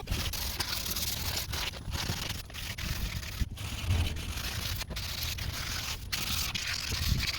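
180-grit sandpaper scraping back and forth over a plastic headlight lens in repeated strokes, stripping off the old oxidized clear coat.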